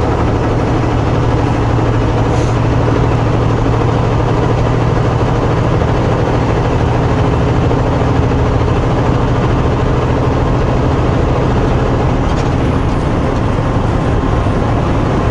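Semi-truck's engine running at a steady low drone with road noise, heard from inside the cab while driving.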